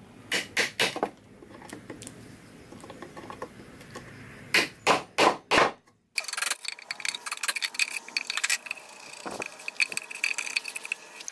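A wooden mallet drives a steel chisel into a reclaimed cedar beam to cut a recess, with two sets of four sharp blows, the second set louder. After that comes a run of quick scraping clicks as wood is pared from the recess.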